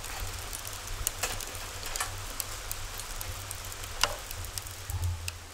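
Mountain stream water running: a steady hiss with scattered small splashes and drips, over a low rumble.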